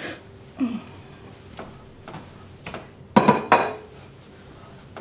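Kitchen utensils being handled, light knocks and clinks every half second or so, then two louder, ringing metallic clinks a little after three seconds in.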